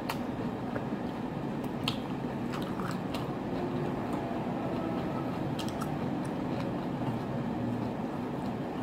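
A person eating close to the microphone, chewing and biting seafood ramen with scattered sharp clicks and crunches, over a steady low hum.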